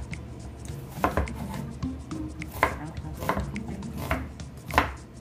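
Kitchen knife cutting through an onion onto a wooden cutting board: about five sharp chopping strokes, spaced roughly a second apart.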